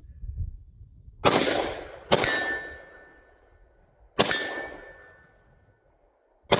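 Four shots from a Great Lakes Firearms AR-15 rifle, spaced one to two seconds apart. Steel targets ring with a clear metallic tone after two of them, showing hits on steel.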